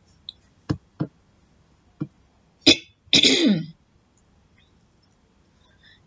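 A person makes one short, sharp cough-like burst from the throat about three seconds in, after a few small clicks.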